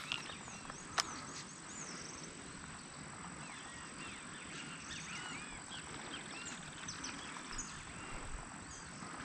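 Outdoor ambience of many small animals calling in short, arched chirps over a steady background hiss, with one sharp click about a second in.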